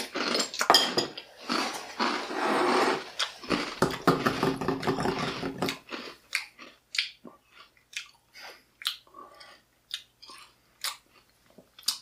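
Mouthful of PB&J Puffs corn-and-oat cereal being chewed: dense crunching for the first half, then sharper separate crunches about two or three a second.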